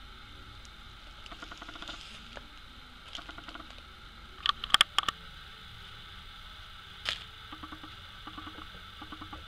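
Plastic packaging being handled in and around a clear plastic storage box, with light rustles and ticks and a few sharp plastic clicks and knocks, the loudest cluster about four and a half to five seconds in and another near seven seconds, over a steady faint hiss.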